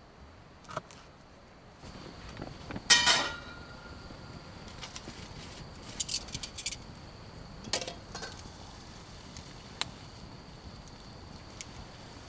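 Metal camp cookware and grill parts being handled, clinking in scattered clicks, with one loud ringing metal clank about three seconds in.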